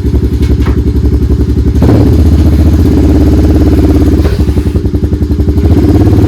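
Engine of a small vehicle running close by with a fast pulsing beat; it picks up and gets louder about two seconds in, eases off around four seconds and rises again near the end.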